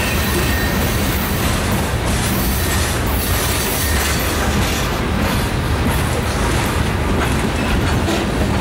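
Loaded coal hopper cars of a freight train rolling past close by, with steady, unbroken wheel-on-rail noise.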